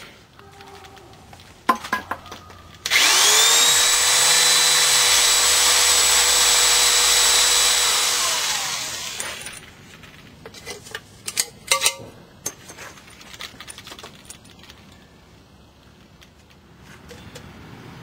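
Electric power drill drilling holes in an aluminium drink can. The motor spins up with a quick rising whine, runs at a steady pitch for about six seconds, then winds down. A few sharp knocks of the can being handled follow.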